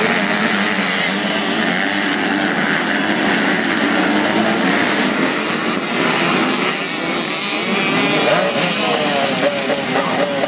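A pack of 85cc two-stroke motocross bikes revving hard together as they race away from the start. Many engines overlap, and near the end single engines can be picked out rising and falling in pitch as the riders change gear and throttle.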